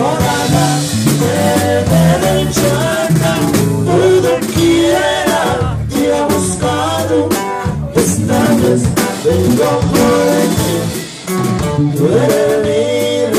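Live norteño band playing: an accordion carries the melody over a strummed bajo sexto and a drum kit keeping a steady beat.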